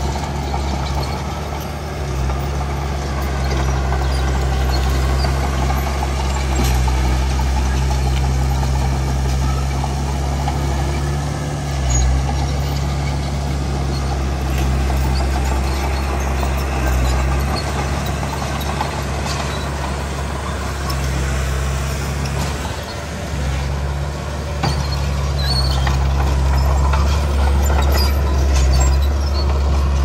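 Diesel engine of heavy earthmoving machinery running steadily under load, its low drone easing and swelling a little at times.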